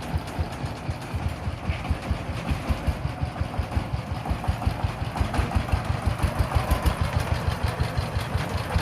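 Single-cylinder diesel engine of a three-wheeled farm tractor running steadily, with an even chugging beat of about six strokes a second.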